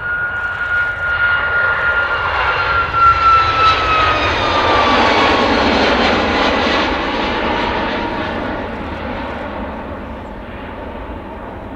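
Boeing 737 MAX 8's CFM LEAP-1B turbofan engines at takeoff thrust as the jet lifts off and climbs away. A high fan whine slides down in pitch as it passes, under a broad engine roar that is loudest about four to six seconds in and then fades.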